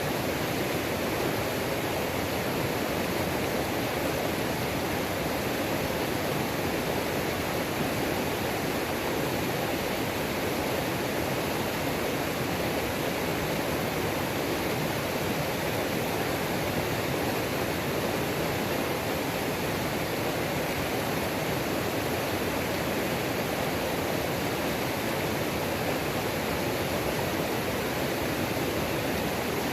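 Waterfall on a creek rushing steadily, an even, unbroken roar of falling and running water.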